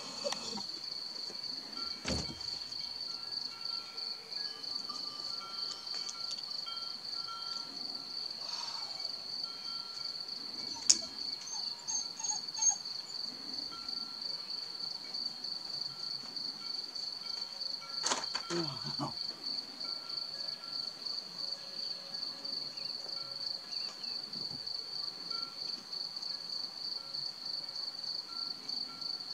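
Crickets trilling, a steady, finely pulsing high tone on one pitch. A few brief knocks sound over it, the sharpest about eleven seconds in.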